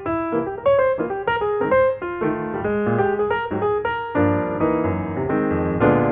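Background piano music: a lively tune of quick notes over a steady bass.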